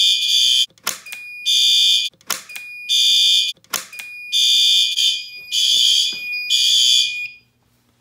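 Building fire alarm sounding after a manual pull station has been pulled: about six loud electronic horn blasts with short gaps, over a thin steady high tone, with a few sharp clicks between blasts. It cuts off about seven seconds in as the system is silenced at the panel.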